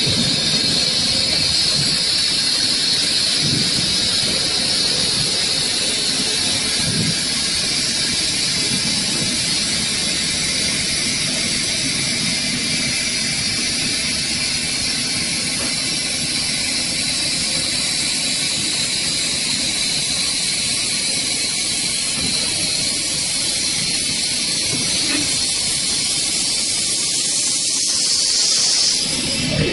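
Four-spindle CNC wood turning lathe running, its cutters shaving four spinning wooden blanks at once: a steady hiss of cutting over the machine's low rumble.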